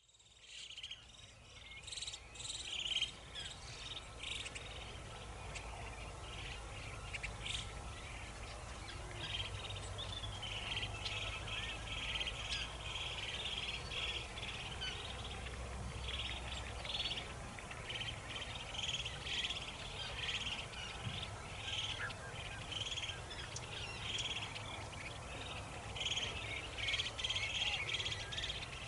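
A flock of small birds chirping, with many short calls overlapping almost without a break.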